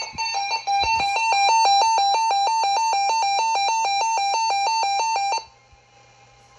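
Emergency alert attention tone: two tones alternating rapidly for about five seconds, then cutting off abruptly. It signals that a severe thunderstorm warning is about to be read.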